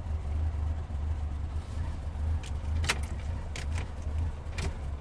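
A few light clicks and jingles of a car key on its key ring over a steady low hum, as the key is handled at the ignition.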